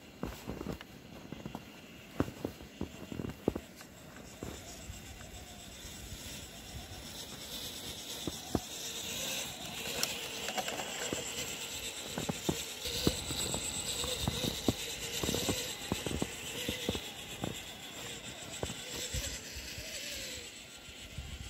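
Footsteps crunching in wet snow, and an HSP 4WD RC rock crawler's electric motor and gears whirring as it drives through sticky snow, growing louder from about a third of the way in.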